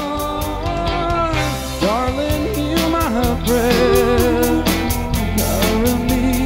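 Live band music: a man and a woman singing long held, wavering notes into microphones over guitar and a steady beat.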